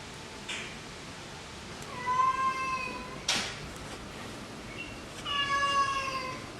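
Domestic cat stuck up on a beam, meowing twice: two long, drawn-out meows about three seconds apart, each falling slightly at the end. A short sharp noise comes between them.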